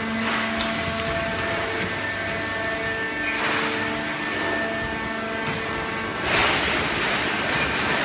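Fully automatic horizontal hydraulic baler for waste paper running: a steady mechanical hum with several held tones from its hydraulic power unit. A rushing swell of noise comes about three seconds in, and a louder one about six seconds in.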